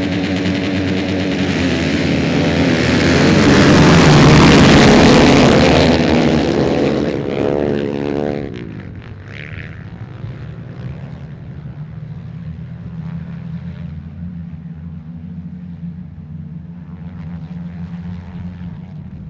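A pack of ice-racing motorcycles revving hard at the start line and pulling away, loudest about four seconds in. About eight seconds in the engine note slides down and drops off as the pack moves away, and fainter engines carry on as the bikes race around the ice track.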